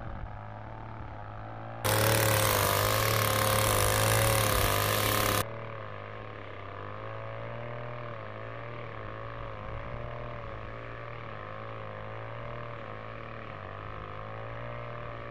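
Gas-powered string trimmer running, its engine pitch wavering up and down as the throttle is worked. It is loud and close for about three and a half seconds starting about two seconds in, then fainter and more distant for the rest.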